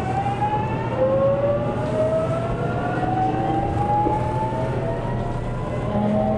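Toshiba GTO-VVVF inverter and traction motors of a JR Kyushu 813 series train whining as it accelerates away from a stop. Several tones rise together; about a second in the pitch steps down and climbs again. Heard from inside the driver's cab.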